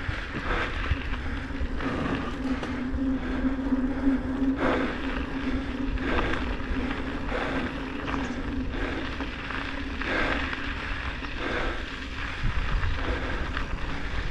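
Mountain bike ridden fast on trail: wind rushing over the chin-mounted camera's microphone, a steady hum from the rolling bike, and scattered knocks and rattles over bumps.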